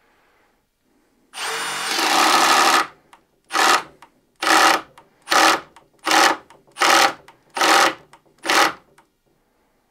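Milwaukee M18 Fuel Surge hydraulic impact driver driving a screw into wood: one continuous run of about a second and a half, then seven short bursts about three-quarters of a second apart. Its hydraulic impact mechanism keeps it quieter than a standard impact driver, metering at about 90 dB.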